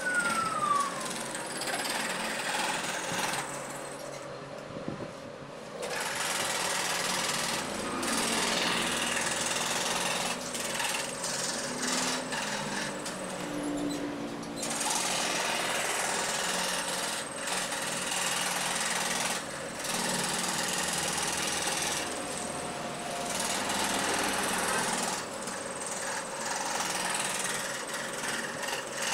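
Bench-mounted jigsaw with a long wooden overarm, its blade running rapidly up and down as it cuts a pattern through a wooden board: a fast, steady chatter. It eases off briefly about four seconds in, then carries on.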